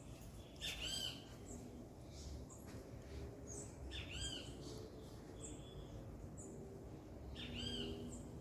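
Bird calls: three similar short, arching calls about three and a half seconds apart, with brief higher chirps between them, faint over low background noise.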